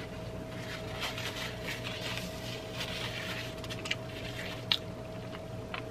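A person chewing food close to the microphone, with soft wet mouth clicks and smacks and a sharper click near the end, over a faint steady hum.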